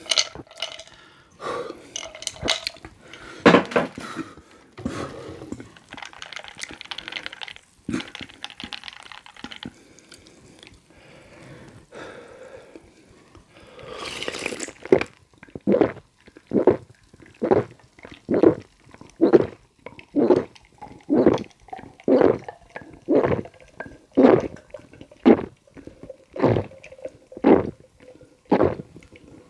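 Ice cubes clinking against glass and carbonated soda being poured, then a long run of steady gulps, about one a second, as a person drinks down a mug of strongly carbonated soda over ice in one go.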